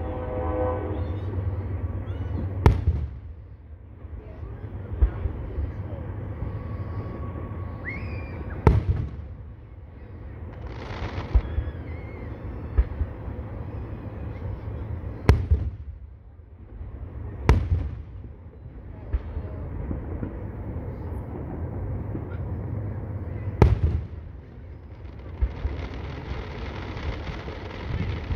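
Aerial fireworks shells launching and bursting overhead: six sharp booms a few seconds apart, with crackling and rumble between them.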